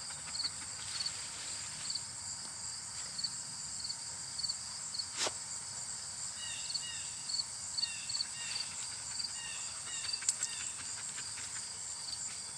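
A steady, high-pitched chorus of insects trilling. A repeated short chirping joins in about halfway through, and there are a couple of sharp clicks.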